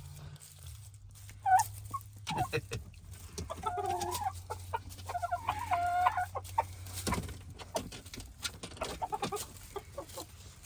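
Polish chickens clucking, with a few short pitched calls in the middle, scattered light taps, and a low steady hum underneath.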